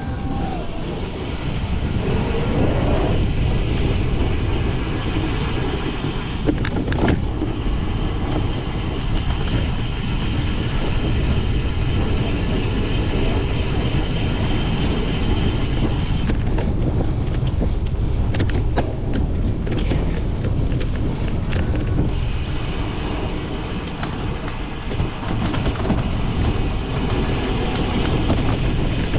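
Cyclocross bike being ridden hard over rough ground: a steady low rumble of tyres and wind on the microphone. A run of rattles and knocks from the bike comes a little past the middle.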